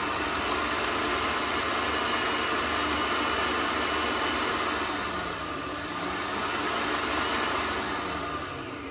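Electric mixer running at speed, beating an all-in-one cake mixture. It gets louder just at the start, the motor's pitch wavers, it dips briefly a little past halfway, and it fades near the end.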